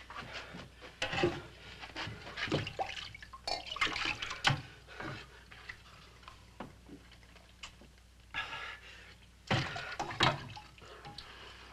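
Water splashing and dripping in a wooden bucket as a man washes with his hands, in irregular splashes with small knocks, the loudest splashes near the end.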